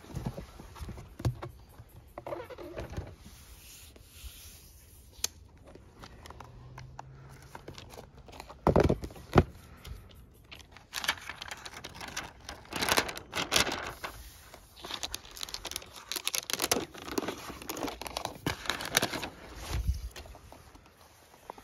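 Unboxing handling noise: cardboard box parts scraping and knocking, with two heavier knocks about nine seconds in, then a long stretch of crinkling and rustling as the laptop's thin protective wrap sheet is pulled away and the laptop is lifted out.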